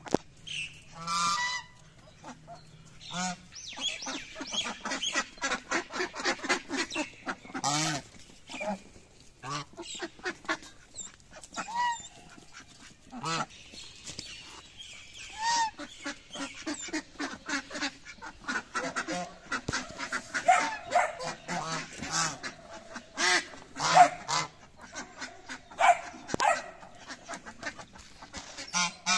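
A flock of domestic geese honking repeatedly, many short calls following one another and overlapping, with a louder honk about two-thirds of the way through.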